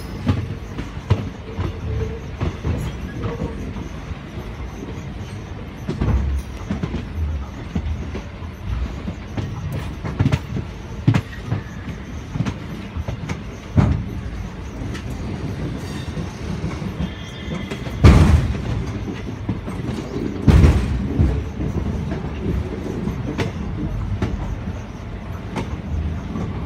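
Passenger coach wheels running on the track as the train pulls into the station: a steady rumble with irregular clicks and knocks over rail joints and points, and two heavy thuds about two-thirds of the way through.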